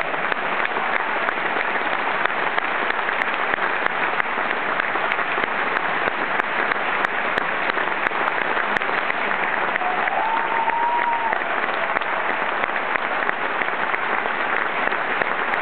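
A large theatre audience applauding: dense, steady clapping. One brief call rises above the clapping about ten seconds in.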